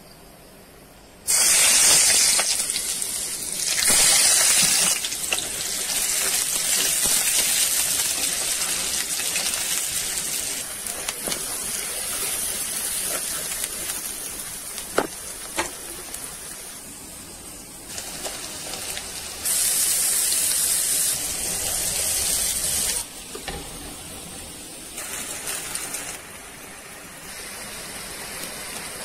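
Sliced onions and chopped aromatics sizzling in hot oil in a pan. The sizzle starts suddenly about a second in and rises and falls in level in sections, with a few sharp ticks around the middle.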